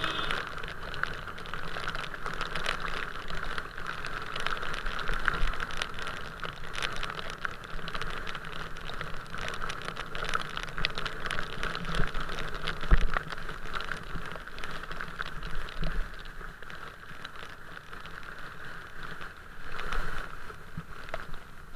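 Steady rain with many small ticks of drops striking close to the microphone, as they land on the camera. A louder knock about thirteen seconds in.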